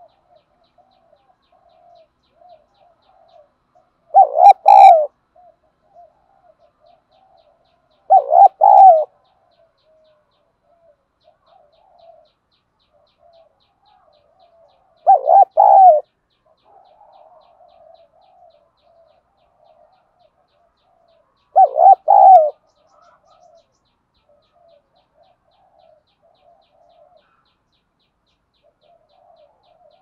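Spotted dove cooing: four loud phrases of about three quick coos each, several seconds apart, with soft, quieter cooing in between.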